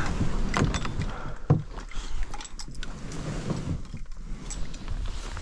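Gear being handled in a kayak: a few scattered knocks and rattles, the loudest about a second and a half in.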